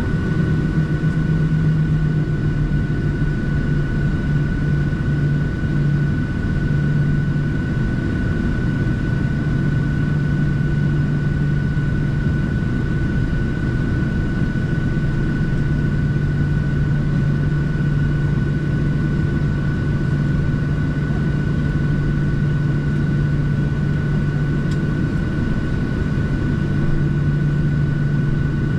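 Boeing 737-700's CFM56-7B jet engines running at a steady setting, heard inside the passenger cabin: a constant low hum with a thin steady whine above it.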